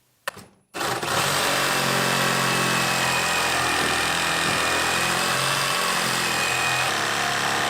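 Ryobi 18-volt brushless reciprocating saw test-run without load, starting about a second in and then running steadily at full speed with a high whine. It is a trial run after packed sawdust, which had been overheating the motor and making it smoke, was cleaned out of the saw.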